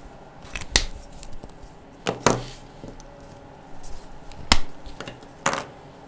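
A handful of short, sharp plastic clicks from Pensan Jumbo felt-tip markers: caps snapped on and pulled off and markers set down while colours are swapped. The loudest click comes about four and a half seconds in.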